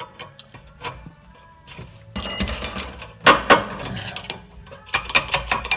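Metal clinking and clattering as hand tools and brake parts are handled. About two seconds in comes a sharp metallic clank that rings on briefly, followed by more knocks and rattles.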